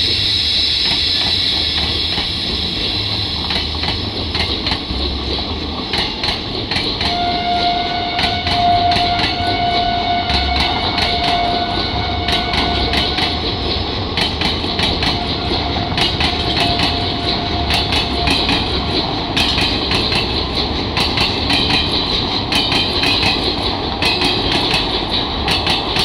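Indian Railways passenger coaches rolling past, their wheels clattering over the rail joints in a run of irregular sharp knocks over a steady rumble. A thin steady whine rides over the clatter from about seven seconds in to about eighteen.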